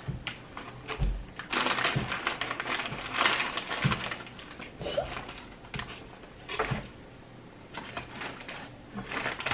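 Crinkling and rustling of a Ruffles All Dressed potato chip bag as hands reach in for chips, in irregular crackly bursts.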